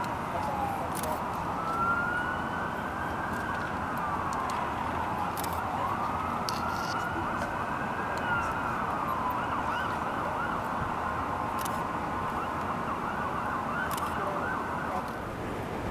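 Emergency-vehicle siren in a slow wail, its pitch rising and falling every few seconds, then holding a steadier tone for several seconds near the end, over a steady rush of wind and city noise.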